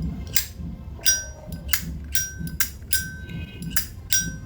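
A Zippo 1941-replica lighter's lid being flicked open and snapped shut over and over, about two clicks a second. Many of the clicks leave a clear, bell-like ring ("âm chuông"), the sound prized as a sign of a good lid and hinge.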